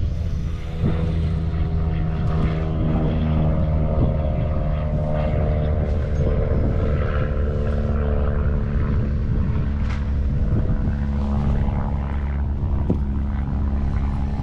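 A steady engine drone, an even stack of tones holding level, with a few light knocks over it.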